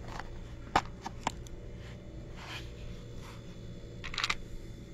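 A hard plastic glucose-meter carrying case being handled and opened: a few sharp plastic clicks in the first second and a half, soft rustling, then a short rattle near the end.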